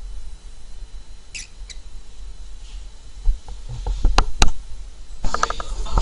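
Pet cockatiel gives two short high squeaks about a second and a half in. Two sharp clicks follow about four seconds in, then a louder rapid pulsed sound near the end.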